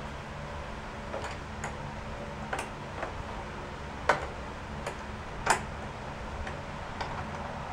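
Scattered light clicks and taps of small parts and tools being handled, irregularly spaced, with two sharper clicks about four and five and a half seconds in, over a steady low hum.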